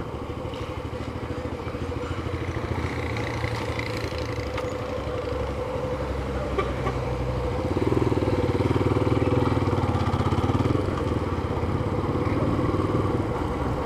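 A Yamaha FZ25's single-cylinder engine running as the motorcycle rides through town streets. It gets louder about eight seconds in and stays louder for a few seconds.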